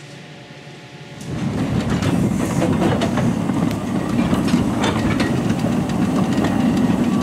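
Hudswell Clarke 0-4-0 saddle-tank narrow-gauge steam locomotive (Lautoka No 19, built 1914) running past under steam with its wagons: dense steam exhaust and rail noise with clicks of wheels and couplings, starting suddenly about a second in. Before that, a low room tone with a faint steady hum.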